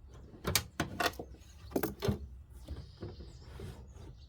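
Porsche 996 plastic headlight unit being pulled out of its bay: a handful of sharp plastic clicks and knocks in the first two seconds, then fainter scraping and rubbing.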